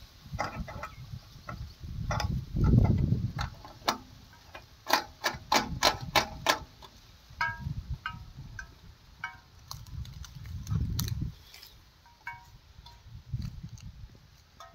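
Wind buffeting the microphone in low, irregular gusts, with a quick run of sharp clicks and taps about five to six and a half seconds in and a few lighter ticks after.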